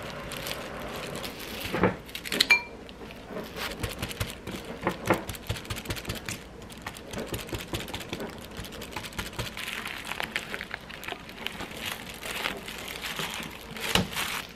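Silicone spatula stirring and scraping a thick chili-paste sauce in a glass bowl: a steady run of small clicks and wet smacks. A brief ring of glass about two and a half seconds in, and a louder thump near the end.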